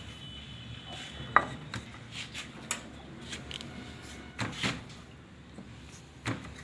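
Wooden rolling pin knocking and clattering on a granite countertop while dough is rolled out and handled. There are several separate knocks, the sharpest about a second and a half in.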